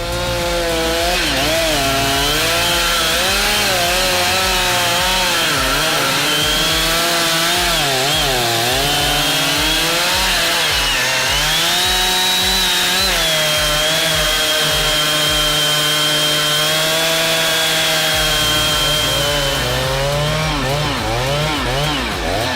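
Chainsaw running at high revs while cutting wood. Its engine pitch dips again and again as the chain loads up in the cut and then recovers, holds steady for several seconds in the middle, and wavers again near the end.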